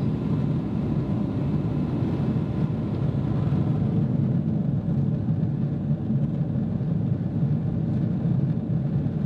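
Steady low rumble of a Boeing 777-300ER's cabin in cruise: engine and airflow noise heard inside the passenger cabin.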